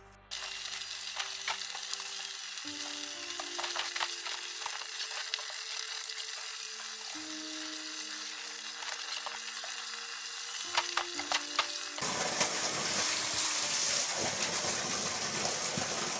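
Water sloshing and scrubbing against a tarpaulin fish pond's walls as they are washed with salt water: a steady hiss with scattered clicks, over soft background music with slow held notes. About three-quarters of the way through the music stops and the hiss gets louder and brighter.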